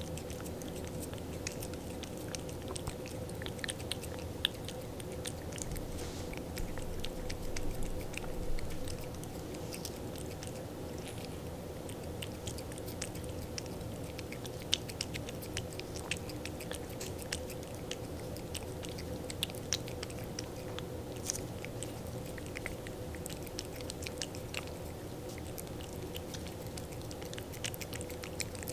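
A cat licking and lapping purée from a squeezed treat tube: a busy run of small wet clicks and smacks, over a steady low hum.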